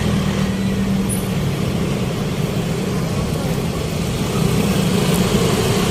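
Steady city road traffic noise, a continuous rumble of passing vehicles, heard from a bicycle.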